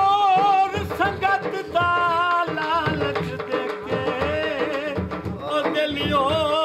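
Male folk singer holding long, wavering, ornamented notes in Saraiki jhumar style, accompanied by dhol drums beating underneath.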